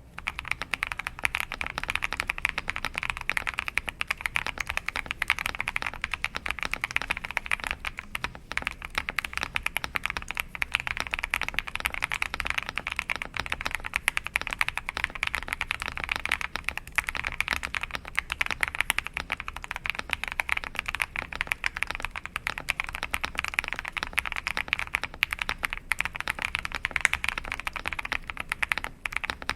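Fast, continuous typing on an Akko 5075B Plus mechanical keyboard with Krytox-lubed switches: a dense, steady stream of keystroke clacks.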